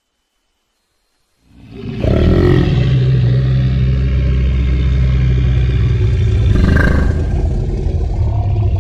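Indian rhinoceros roar sound effect: after a moment of silence, one long, loud, low-pitched roar swells up and holds, with a brighter surge partway through.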